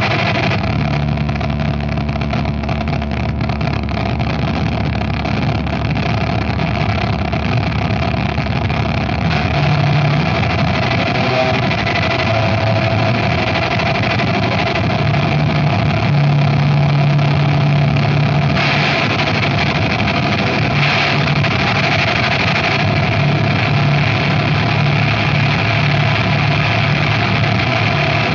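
Harsh noise music: an unbroken wall of dense distorted noise at a steady loudness. Low droning tones come and go underneath, and a brighter hiss swells in for a few seconds about two-thirds of the way through.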